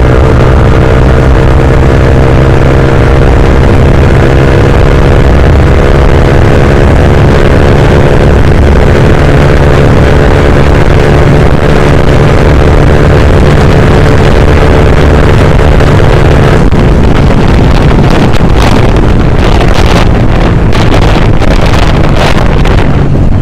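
Motorcycle engine pulling steadily at high road speed, with wind rushing over the microphone. About two-thirds of the way through, the engine's steady note drops away and gusty wind buffeting takes over.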